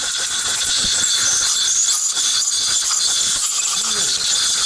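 Compressed-air blow gun hissing steadily, blowing carb cleaner off the carburetor jets to dry them. The hiss starts abruptly and cuts off suddenly near the end.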